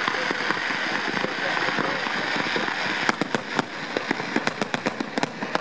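Fireworks going off: a dense steady hiss and crackle of spark fountains, then from about three seconds in a quick run of sharp bangs, several a second.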